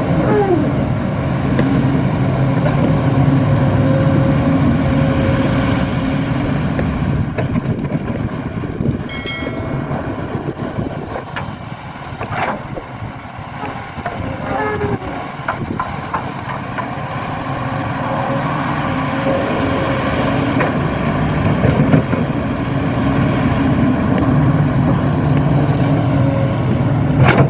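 Radio-controlled model excavator working: a steady engine-like hum with a thin high whine from its electric motors, easing off about halfway through and building again toward the end.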